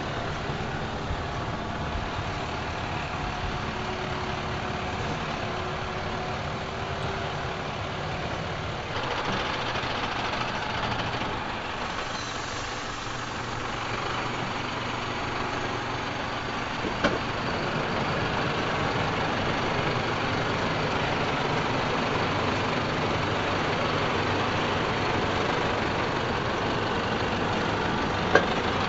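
Mercedes-Benz Unimog U5023 truck's diesel engine running steadily as it crawls through deep mud. Two sharp knocks, one a little past halfway and one near the end.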